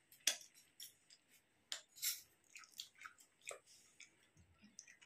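Faint, irregular small clicks and crunches of someone chewing a fried snack close to the microphone.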